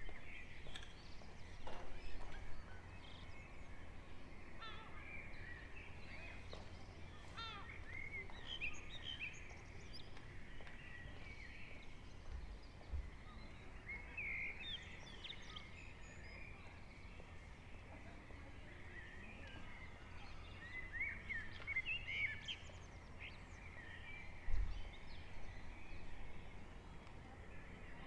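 Several songbirds chirping and singing in the early-morning dawn chorus, over a steady low rumble. Two brief low thumps, one about halfway through and a louder one near the end.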